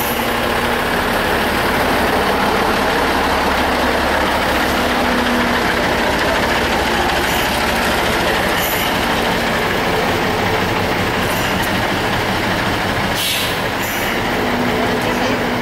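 A large engine running steadily close by: a loud, even rumble with a low hum. One short sharp knock near the end.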